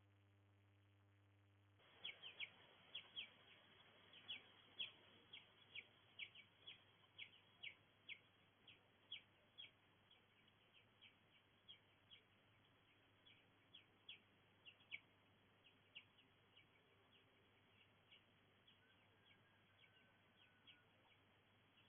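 A low steady hum for about the first two seconds, then a bird chirping over and over: short, high, falling chirps, about two a second at first and thinning out toward the end, over a faint hiss.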